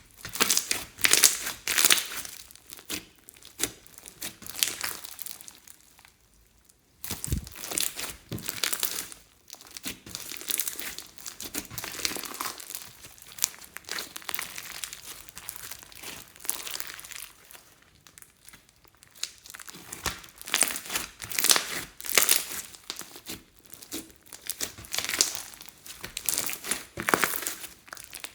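Hands kneading, pressing and stretching slime in irregular handfuls, with a short lull about six seconds in.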